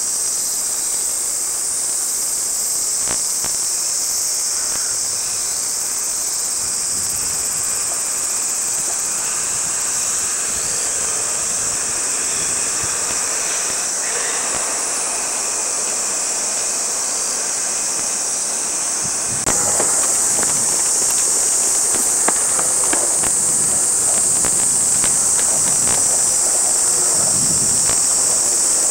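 Cicadas droning in a steady, high-pitched hiss. About two-thirds of the way in the drone gets louder and scattered knocks and clatter join it.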